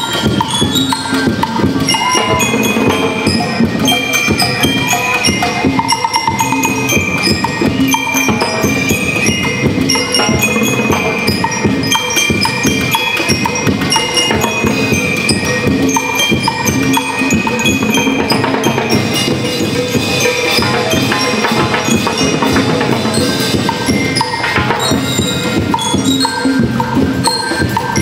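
School rhythm band playing a marching tune: bell lyres ringing out a quick melody over a steady drum beat.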